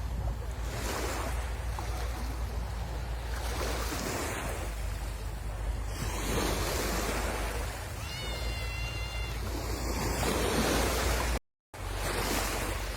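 Sea waves breaking and washing ashore in repeated swells, with a low wind rumble on the microphone. About eight seconds in, a brief high-pitched cry lasts about a second, and the sound cuts out for a moment near the end.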